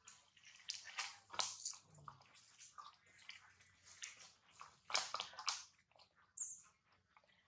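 Long-tailed macaque chewing and biting leafy greens: irregular soft crunching and clicking.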